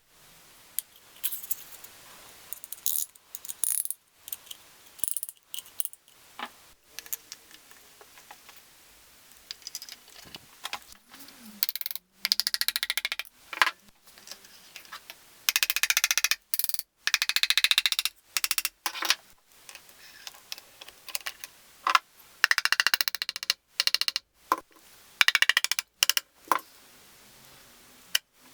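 Short, abruptly cut snippets of workshop noise: metal hand tools and engine parts clinking and rattling, some snippets holding rapid clicking.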